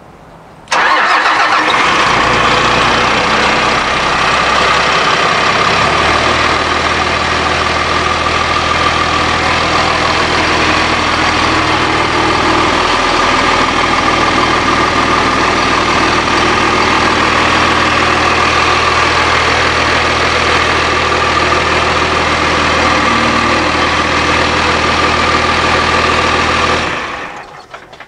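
Cummins ISC 8.3-litre inline-six diesel in a bus's open rear engine bay starting abruptly about a second in, then idling steadily under a steady whine. Its idle steps lower a few times in the first dozen seconds as it settles, and near the end it is shut down and winds down.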